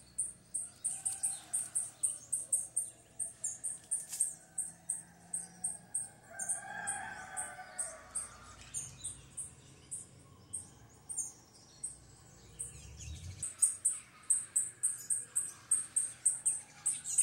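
Outdoor ambience of high-pitched chirping, one short chirp repeating evenly about four times a second, with a fainter, lower call about seven seconds in.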